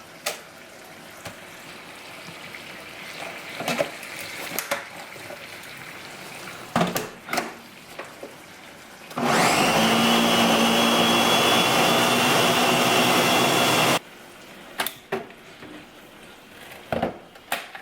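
Countertop blender running for about five seconds, puréeing a chipotle, tomato and cream cheese sauce, then switched off abruptly. It starts about nine seconds in, after a few clicks and knocks of handling the jar.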